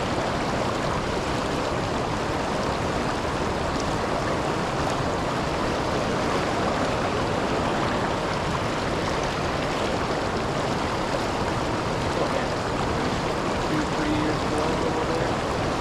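Steady rush of river water at a waterfall, an even noise that does not change.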